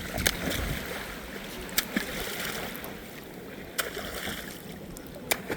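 Sea water sloshing and lapping close to the microphone, with a handful of sharp knocks scattered through it.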